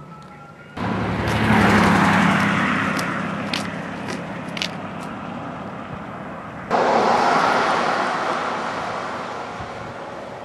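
Car traffic on a street, a steady rush with a low engine hum. It cuts in abruptly about a second in, fades slowly, then cuts in again near seven seconds and fades again.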